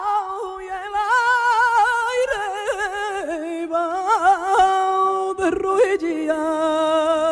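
A solo voice singing a slow melody with wide vibrato and long held notes, with little else behind it.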